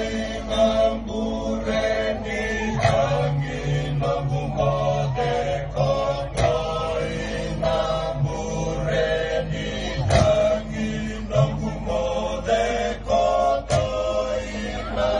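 A group of voices chanting a Fijian meke song over a held low note, with a few sharp strikes along the way.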